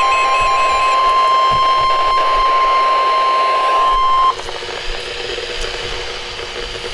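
NOAA Weather Radio warning alarm: a single steady 1050 Hz tone, signalling that a new warning is about to be read. It cuts off abruptly about four seconds in, leaving radio hiss with a faint low hum.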